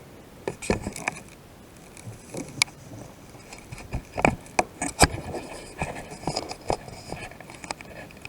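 Plastic 2x2 speedcube being turned by hand: a run of irregular quick clicks and clacks as its layers snap round, over a light scraping of plastic on plastic.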